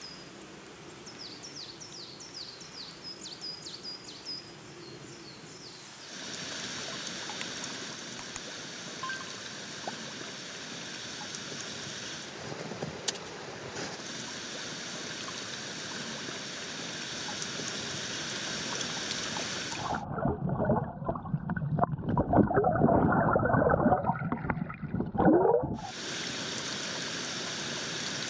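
A small bird chirping, a quick run of short falling notes, then the steady rush of a mountain waterfall and stream. About twenty seconds in, the sound turns louder and muffled for some six seconds, a rumbling with the highs cut off, before the rush of the water returns.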